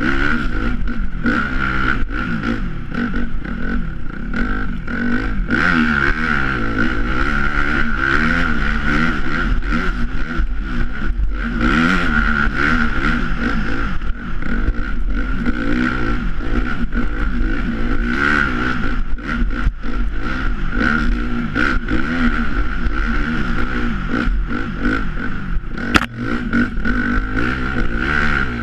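Dirt bike engine running under way, its pitch rising and falling constantly as the throttle is worked, with a steady high whine alongside it. A single sharp knock comes near the end.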